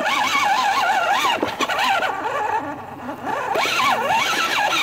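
A child's high voice making warbling engine noises, the pitch wobbling up and down like revving. It fades for about a second in the middle and then comes back.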